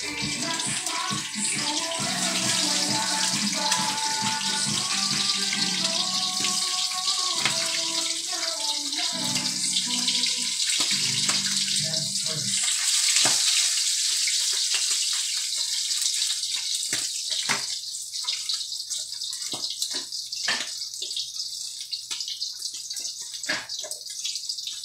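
Hot oil sizzling steadily in a wok over a gas burner, with scattered crackles and pops in the second half.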